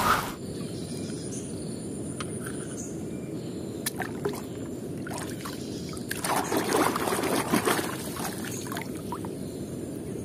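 Water sloshing and splashing as a small die-cast toy car is swished by hand through muddy water in a tub, the splashing busiest about five to eight seconds in, over a steady low rush.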